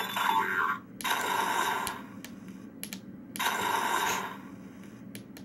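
Flare-firing sound effect from an Arduino-built Judge Dredd Lawgiver prop's speaker: three rushing noise bursts, each about a second long, with a few faint clicks between them over a steady low hum. Each shot takes one LED off the ammo counter.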